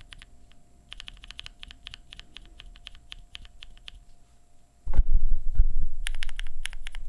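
Rapid typing on a custom mechanical keyboard with lubed, filmed linear switches, aluminium plate and GMK keycaps: a quick run of key clacks. About five seconds in a loud low thump and rumble covers it for about a second, then the typing resumes louder.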